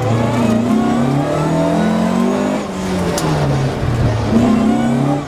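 Rally car engine heard from inside the cabin, revving hard and easing off through a tight section. The pitch climbs, drops about two and a half seconds in, and climbs again near the end.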